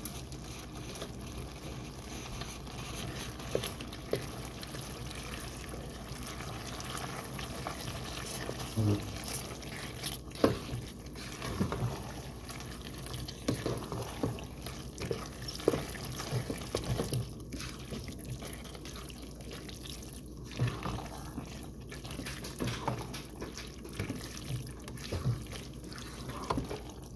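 Spoon stirring macaroni, ground meat and melted cheese sauce in a pan: wet stirring with scattered small clicks and knocks of the spoon against the pan, over a steady hiss.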